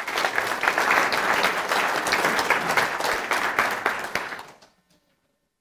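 Audience applauding, many hands clapping together, dying away about four and a half seconds in.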